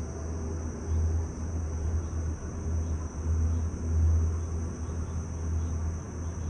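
Low rumble of a Disney Skyliner gondola cabin gliding along its cable, swelling and fading every second or so, under a steady high-pitched hum.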